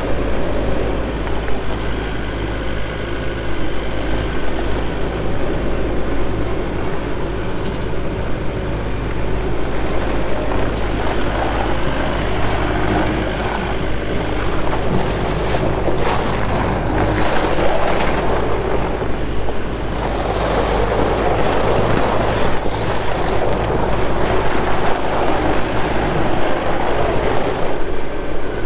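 Bobcat S770 skid steer loader's diesel engine running as the machine is operated, with the sound swelling louder in stretches about halfway through and again near the end.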